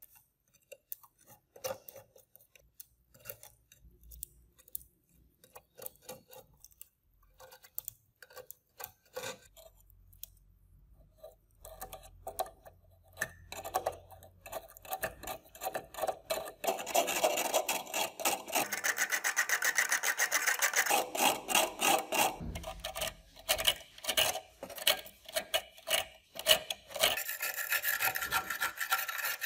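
A thin metal knife blade scraping rust from the steel case and pointer of an antique mechanical hanging scale. Sparse, light scrapes and taps at first, then fast, continuous scraping from a little past halfway.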